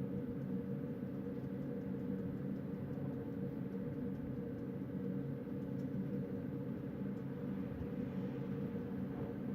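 Steady low rumble of wind at night, even and unchanging, with a faint hum running through it.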